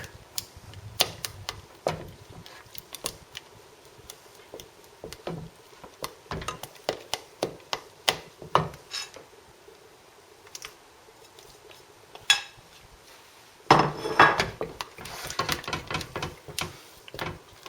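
A whisk beating béchamel sauce in a pot, clinking irregularly against its sides, then a louder run of rapid clinks near the end. Eggs are being mixed in quickly so they don't cook in the hot sauce.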